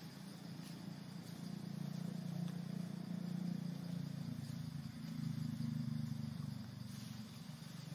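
A low engine hum, as of a distant vehicle, swells over a few seconds and eases off near the end, over a faint steady insect drone.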